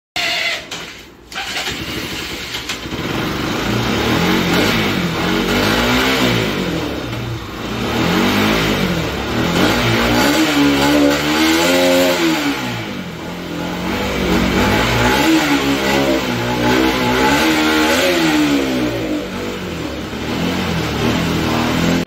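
Bajaj Pulsar RS200's single-cylinder engine running and being blipped up and down on the throttle again and again, on a bike with a misfire that is put down to a faulty fuel pump.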